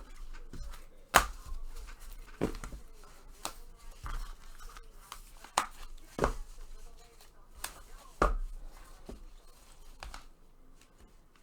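Trading cards being handled on a table: a series of sharp taps, about one every second or two, with light rustling of cards and packaging in between.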